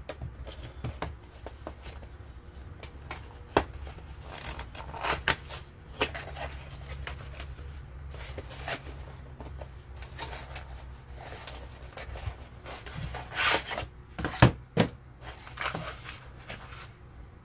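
Handling noise from a small cardboard Burt's Bees gift-set box being opened and its plastic insert tray slid out: scattered rustling, scraping and light clicks of cardboard and plastic, with the sharpest click about fourteen seconds in. A faint steady low hum runs underneath.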